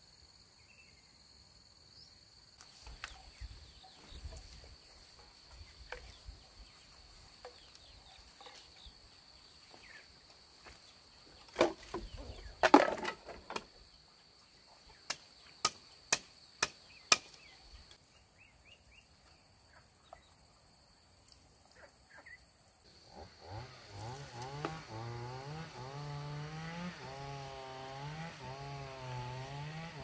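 Insects buzzing steadily, with scattered wooden knocks, a loud clatter near the middle and a quick run of sharp knocks. About two-thirds in a chainsaw starts up and runs on, its engine speed rising and falling.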